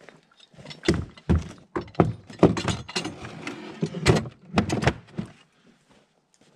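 A chainsaw and a capstan chainsaw winch being set down into a plywood box on a sled: a run of hard thuds and clunks as the tools knock against the wood and each other.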